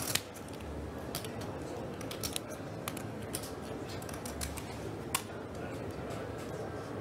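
Poker chips clicking together now and then, in scattered sharp clicks as chips are handled at the table, over steady low room tone. The sharpest clicks come just after the start and about five seconds in.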